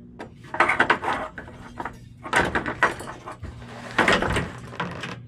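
Knocking, rattling and scraping of gear being handled and moved about, in three bursts, over a steady low hum.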